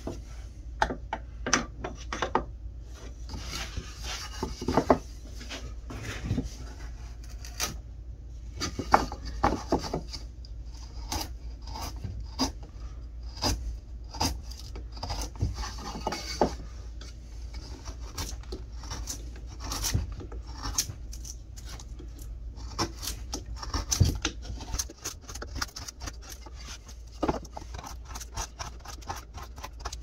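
Hand carving gouge cutting along a pine 2x4 board in repeated scraping strokes, with many irregular sharp clicks as wood chips break off and land.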